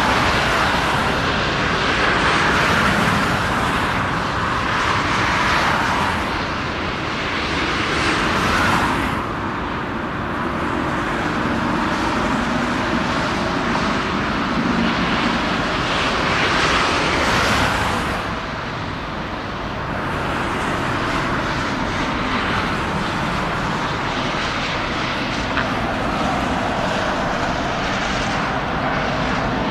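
Boeing 747-8's four turbofan jet engines at takeoff power, a loud continuous jet roar as the airliner takes off and climbs overhead. The noise swells and eases several times, dipping briefly about two thirds of the way through.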